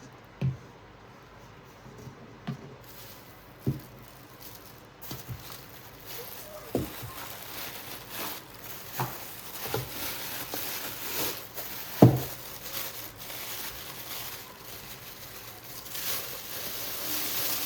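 Packaging being handled: scattered light knocks and thuds, the loudest about twelve seconds in, with plastic wrapping crinkling from about five seconds on, heaviest near the end.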